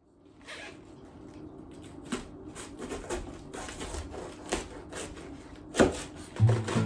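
Irregular clicks and light knocks that grow busier, with one louder knock a little before the end.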